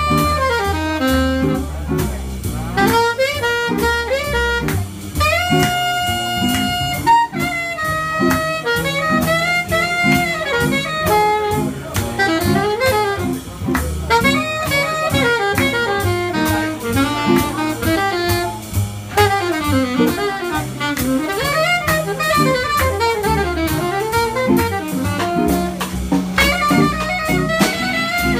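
Saxophone improvising a jazz solo in quick runs that climb and fall, over a stepping bass line and a drum kit keeping time on the cymbals.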